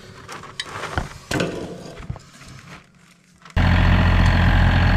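A few scattered light knocks and clicks, then, about three and a half seconds in, a sudden cut to a vehicle engine idling steadily.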